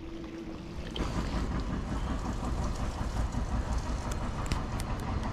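Loaded touring bicycle rolling over a rutted, muddy dirt road: a steady rumble of tyres and rattling, louder from about a second in, with scattered sharp clicks.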